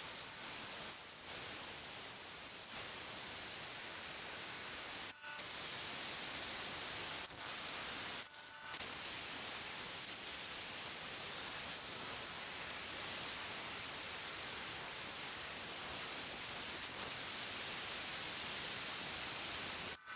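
A steady hiss, briefly broken about five, seven and eight seconds in.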